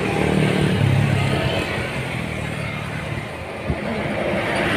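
Roadside traffic noise: a vehicle engine running with a steady low drone, and one short knock about three and a half seconds in.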